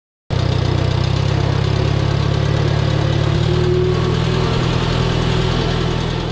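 Tractor engine running steadily with an even low beat. It starts abruptly a moment in and fades out near the end.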